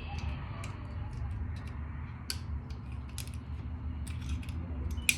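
Screwdriver working a small screw loose: scattered light clicks and creaks over a steady low hum.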